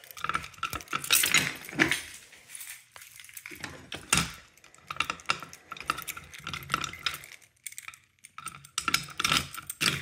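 A ring of metal keys jangling and clinking as they are sorted through by hand, in irregular bursts of sharp jingles.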